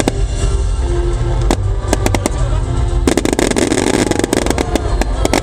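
Fireworks bursting over loud show music, with a heavy low rumble. Single sharp bangs come now and then, and about three seconds in a dense flurry of bangs and crackle begins.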